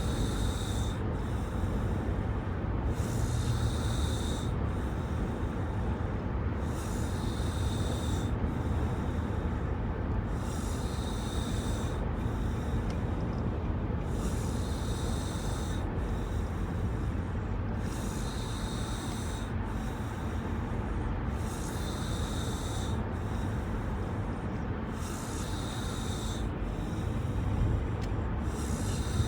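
Snoring in a steady rhythm, one breath about every three and a half seconds.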